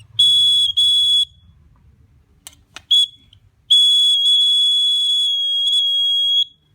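Buzzer of a homemade laser tripwire alarm (LDR and 9 V battery circuit) sounding a high, steady tone in on-off beeps: two half-second beeps near the start, a short blip about three seconds in, then one long tone of nearly three seconds. The buzzer sounds whenever the laser beam to the light sensor is broken. Two faint clicks come just before the short blip.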